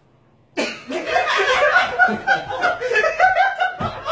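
People laughing: the laughter breaks out suddenly about half a second in and carries on without a break.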